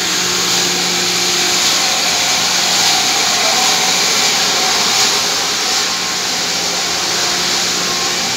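Electric motors of vertical booster pumps running, a loud, steady whirring hiss with a constant low hum underneath.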